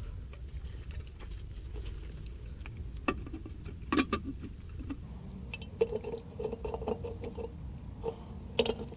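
Light metallic clicks, taps and small scraping sounds of hand work on the rear differential cover and its new gasket. There are a few sharp clicks and a quick run of small ticks in the middle.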